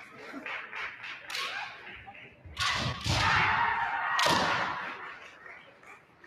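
Bamboo shinai strikes cracking and kiai shouts from kendo bouts, echoing in a gymnasium, with the loudest stretch of shouting and strikes from about a third to two thirds of the way through.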